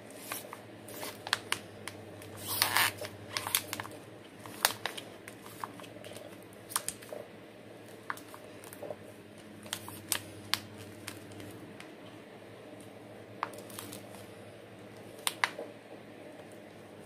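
Damp sphagnum moss rustling and a thin clear plastic cup crackling as the moss is packed and pushed around an orchid by hand. It comes as scattered clicks and crinkles, busiest about two and a half seconds in, over a faint steady hum.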